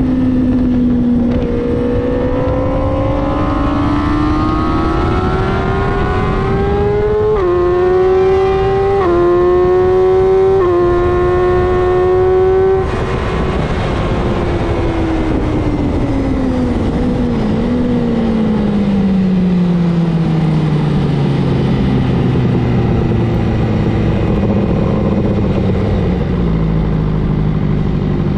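BMW S1000RR inline-four engine heard onboard, over constant wind rush. It revs up hard and shifts up three times in quick succession, then shuts off about halfway through. The revs fall away slowly, with one brief blip, until the engine runs low and easy near the end as the bike slows.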